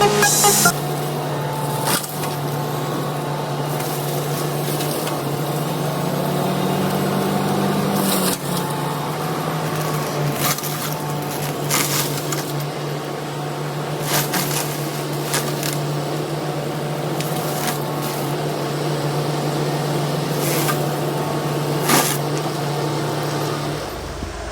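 Excavator-mounted FEMAC T9 forestry mulcher working undergrowth, a steady machine hum that rises in pitch for a couple of seconds around six seconds in, with several sharp cracks through it.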